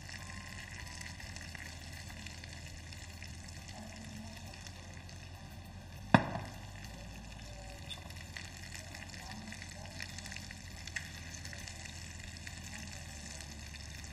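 Rice and onions sizzling in oil in a frying pan as raw rice is tipped in and stirred to toast. One sharp knock about six seconds in.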